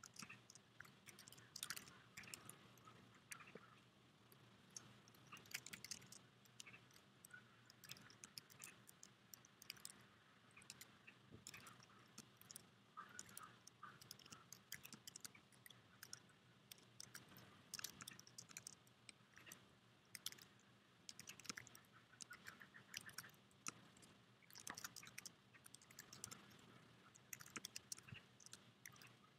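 Faint typing on a computer keyboard: irregular runs of quick keystroke clicks.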